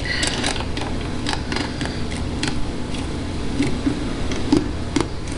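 Plastic Lego plates clicking and tapping as they are pressed onto the studs, a scattered handful of short clicks over a steady low background hum.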